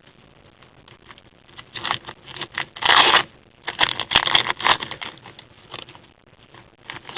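Trading cards and a card pack's wrapper being handled: a series of short rustling and scraping bursts, the loudest about three seconds in.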